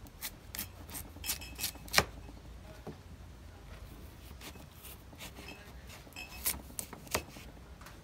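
Kitchen knife slicing carrot on a plastic cutting board: irregular sharp clicks as the blade cuts through and meets the board, several in the first two seconds with the loudest about two seconds in, and a few more near the end.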